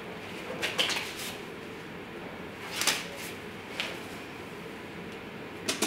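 Disposable gloves being pulled off and a respirator mask handled: a few short rustles and clicks over a steady low room hum.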